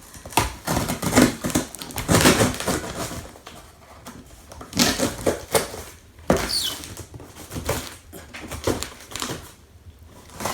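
Cardboard and plastic packaging being handled and pulled open, with irregular rustling, crinkling and clacks, and a brief squeak partway through.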